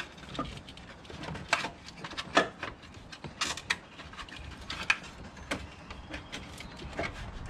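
Irregular metallic clinks, knocks and scrapes of a loose engine mount and tools being worked among parts and heat shields in an engine bay, with a louder knock about two and a half seconds in and another near five seconds.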